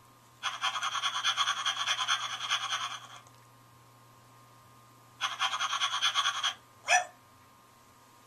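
Mattel Barbie barking puppy plush toy's electronic sounds, set off by a pat on its head: a fast panting sound for about three seconds, a second shorter burst of panting about five seconds in, then a single bark falling in pitch near the end.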